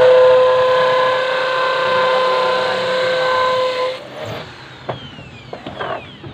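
A steady machine whine over a hiss, cutting off abruptly about four seconds in, followed by a few light knocks.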